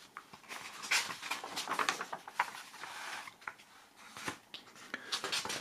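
Large newsprint pages of a newspaper-style magazine rustling and crinkling as they are leafed through by hand, in a run of irregular soft rustles.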